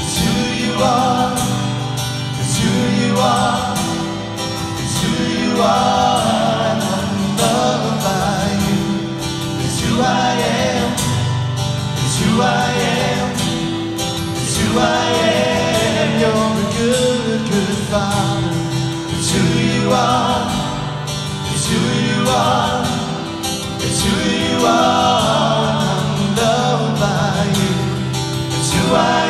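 Live praise and worship song: two acoustic guitars played with several men's voices singing together.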